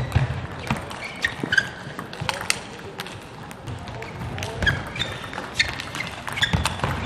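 Table tennis rally: the plastic ball clicking sharply off the bats and the table in quick, irregular succession, with short high squeaks of shoes on the court floor.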